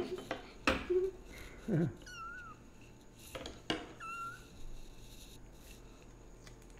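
A month-old kitten gives two short, high mews, about two and four seconds in. A few sharp knocks of handling come in between.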